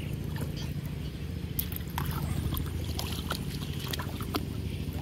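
An engine running steadily as a low hum, with scattered light clicks over it.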